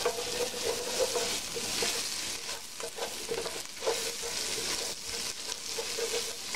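Minced garlic and grated ginger sizzling in melted butter and coconut oil in a stainless steel pot, the garlic starting to brown. A wooden spoon stirs and scrapes around the pot, making frequent short scrapes and light knocks over the steady sizzle.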